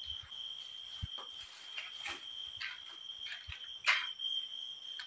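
Insects, likely crickets, calling in one steady high-pitched drone, with scattered soft rustles and clicks and a louder brief rustle about four seconds in.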